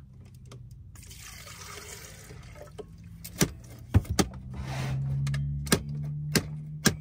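Water being poured out of a partly frozen water container, with several sharp clicks and knocks as the container is handled, over a steady low hum.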